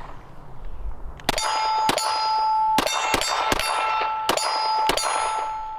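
Rapid semi-automatic fire from a Glock pistol, about seven shots in four seconds, starting about a second in. A metallic ringing from a struck steel target carries on between the shots and cuts off near the end.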